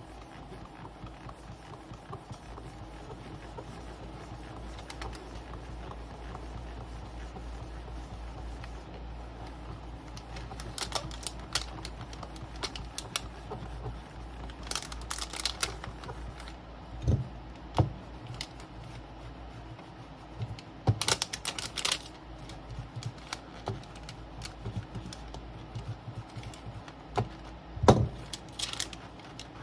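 Handling noise from LCD polarizer-film work on a workbench: scattered clicks, taps and short scratchy rubs, with a few sharper knocks in the middle and one near the end, over a steady low hum.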